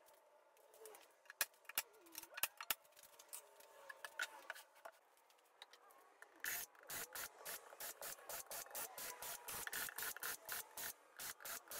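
Cordless drill driving screws into a plywood cabinet panel: a few scattered taps and clicks early, then about halfway in a rapid, even run of clicks at roughly four a second.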